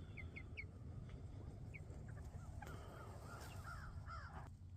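Faint bird calls, short and scattered at first and coming more often in the second half, over a low background rumble.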